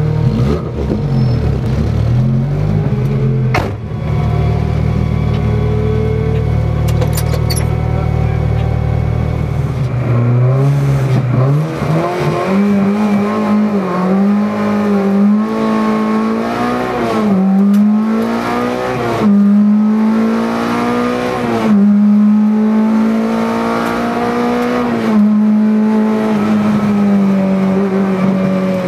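Peugeot 309 rally car's engine heard from inside the cabin, held at steady revs with a few small blips for about ten seconds at the stage start. Then the car launches, and the engine revs up and shifts up through the gears, its pitch climbing and dropping back at each change.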